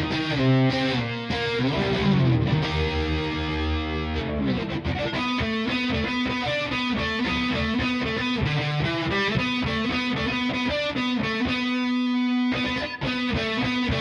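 Ibanez GRG170DX electric guitar played through a distorted drive tone: fast picked metal riffs and runs with sliding notes. A single note is held briefly near the end.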